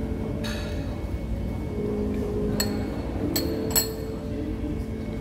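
Metal fork clinking against ceramic bowls and plate while eating: four sharp clinks with a short ring, the loudest near the end. Background music plays underneath.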